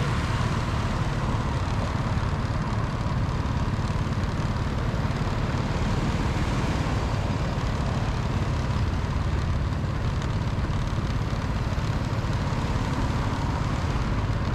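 Steady driving noise from a road vehicle in motion: a constant low engine and tyre rumble with an even hiss over it, with no separate events standing out.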